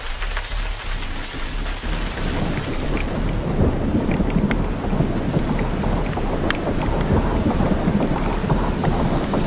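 Rain falling on a wet track and onto the onboard camera: a steady hiss over a low rumble, slowly growing louder, with a few faint clicks.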